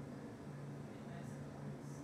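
Quiet room tone: a steady low hum, with two faint, brief rustles, one about halfway through and one near the end.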